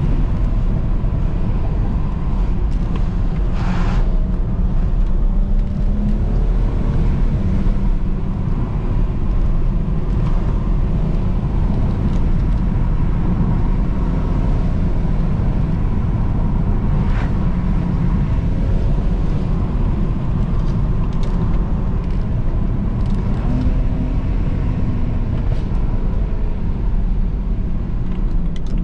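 A straight-piped BMW 335i's 3.0-litre twin-turbo straight-six drones steadily under way, over a dense rumble of road and tyre noise, with its pitch drifting only gently. A brief sharp crack comes about four seconds in, and another around seventeen seconds.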